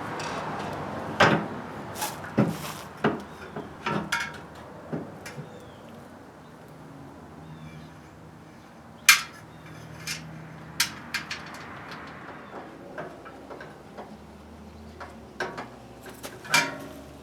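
Irregular metallic clinks and knocks from screws and the sheet-steel parts of a stainless steel cabinet being handled and fitted together, with one sharp clank about nine seconds in.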